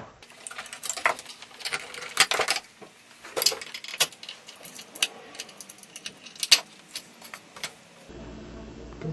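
Handling noises at a benchtop drill press with the motor off: irregular clicks, knocks and light metallic jangles as the yo-yo is taken off its screw-and-wood-block mount.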